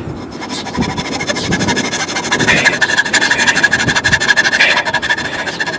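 Hand saw cutting the teeth of a small wooden ratchet wheel, a steady run of back-and-forth sawing strokes through the wood.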